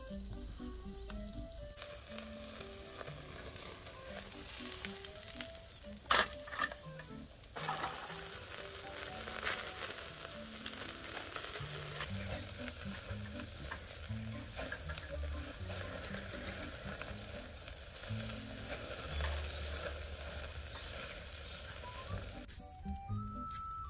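Pieces of black pork sizzling and spitting on a wire grill over a coal-briquette fire, louder from about eight seconds in, with a sharp click about six seconds in. The sizzle cuts off near the end.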